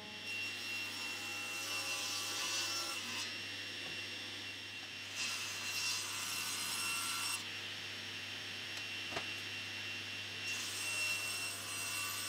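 Table saw running steadily with a high tone, making three cuts through a camphor laurel board as it is squared up; each cut is a few seconds of rasping wood-cutting noise. There is a single light knock between the second and third cuts.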